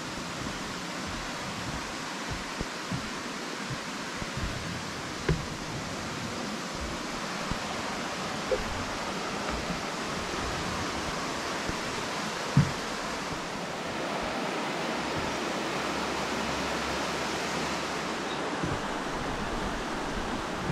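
Steady rain falling in forest, a constant even hiss, with a few louder single drops landing close by.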